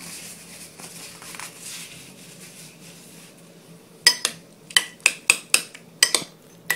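Metal spoon mixing guacamole in a ceramic bowl. It is fairly quiet at first. From about four seconds in comes a quick run of sharp clinks as the spoon strikes the bowl's sides.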